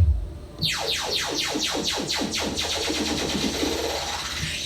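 DJ sampler sound effect from a Pioneer DDJ-SX3 controller running Serato DJ, played through PA speakers. A falling sweep lands on a bass hit at the start, then about half a second in comes a rapid train of descending electronic zaps, several a second, which fades out near the end.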